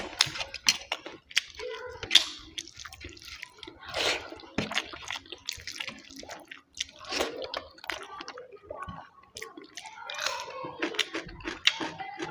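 Close-miked eating sounds: wet chewing and lip smacking, with many short irregular sticky mouth clicks.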